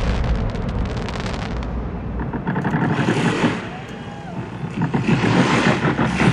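Tail end of a fireworks sequence: crackling and low rumbling from the last shells fade over the first two seconds into a quieter lull.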